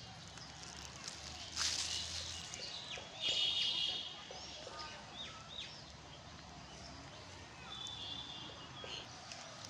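Small birds chirping outdoors: short downward-curving calls and a brief buzzy call about three seconds in, with a brief rustle about one and a half seconds in.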